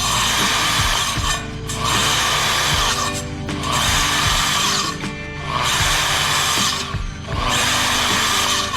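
A woodworking tool cutting into timber in five even passes, each about a second and a half long with short breaks between them. Background music plays underneath.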